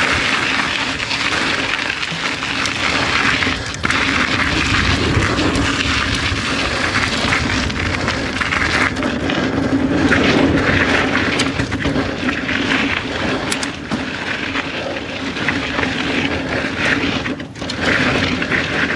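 2018 Santa Cruz Hightower LT mountain bike descending rough, rocky dirt singletrack: a steady rush of tyre and wind noise, broken by frequent knocks and rattles as the bike hits rocks and bumps.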